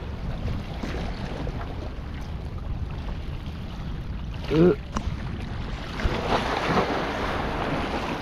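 Wind buffeting the microphone over the sea lapping against the shore rocks, a steady rumbling noise. About four and a half seconds in there is one short, loud rising cry.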